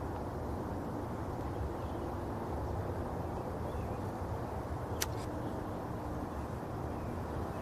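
Steady low outdoor background noise, with a single sharp click about five seconds in.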